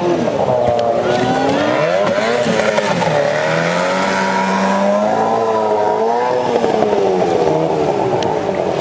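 Outboard motor of a small racing power dinghy running hard through river rapids, its revs rising and falling over and over.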